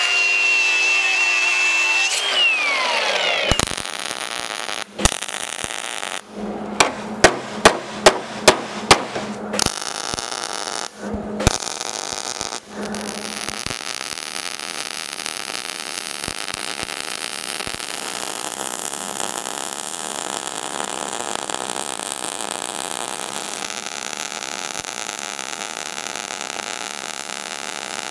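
An angle grinder cutting a steel patch plate, then spinning down a couple of seconds in. Several seconds later there is a quick run of about seven sharp knocks. From about halfway on, a MIG welder's arc crackles steadily as the patch is welded onto the rusted mower deck.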